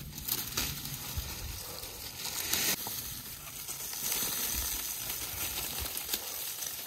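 Dry corn stalks and their papery leaves crackling and rustling as they are snipped at the base with hand pruners and pulled out of the soil.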